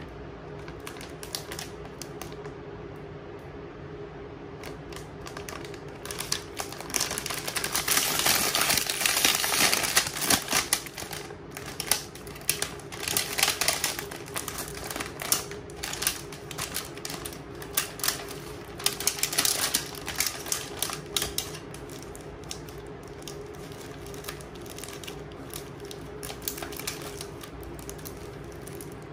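Plastic snack bag crinkling as it is handled and opened, the individually wrapped packets inside rustling against it. The crackling comes in a dense spell from about six seconds in until about twenty seconds, loudest around eight to ten seconds, over a steady low hum.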